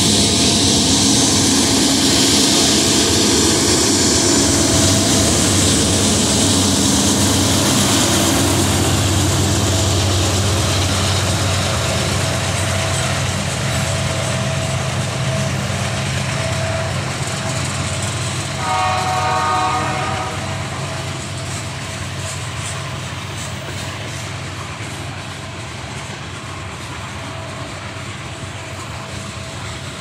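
General Electric diesel-electric freight locomotives rumbling past at close range, followed by a string of loaded ballast hopper cars rolling by with wheel clatter on the rails. The sound fades gradually as the locomotives move away. A short horn blast sounds from up the line a little over halfway through.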